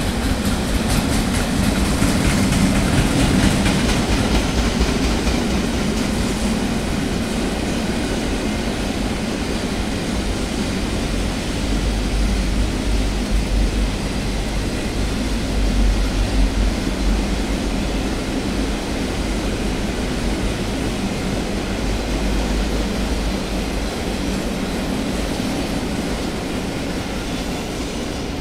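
Freight train of loaded double-deck car-carrier wagons rolling past at close range: a steady rumble and rattle of wheels on rail, easing slightly near the end as the last wagons go by.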